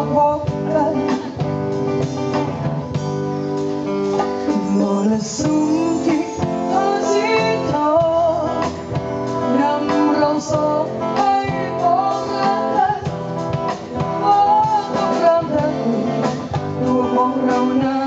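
Live band music: guitars and hand drums with a drum kit keeping a beat, and a singing voice over them.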